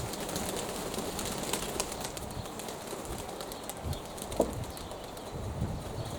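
Domestic pigeons cooing, with a steady rush of strong wind and scattered short ticks and low thumps.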